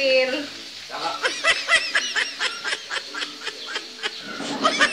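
A high-pitched giggling voice: a fast run of short chirps that rise and fall, from about a second in until near the end.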